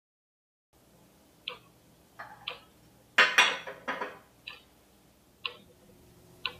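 A clock ticking about once a second in a quiet room, starting after a brief silence, with two louder clinks and rattles of china teacups on saucers in the middle.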